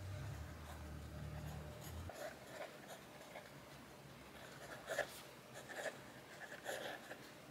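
Pen writing on lined notebook paper: faint, short scratching strokes of the pen tip, the sharpest about five seconds in.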